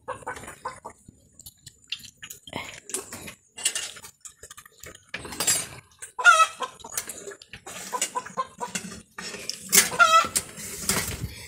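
Dogs eating from metal bowls, the bowls clinking and knocking on the floor in many short irregular sounds, with a chicken clucking, most clearly twice, about 6 and 10 seconds in.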